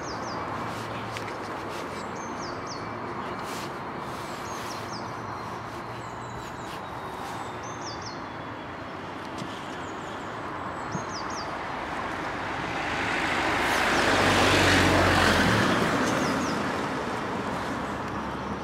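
Steady low rumble of the Network Rail cable train's drum-carrying wagons creeping past below, with small birds chirping now and then. About two-thirds of the way through, the rushing noise of a passing vehicle swells to the loudest point and fades.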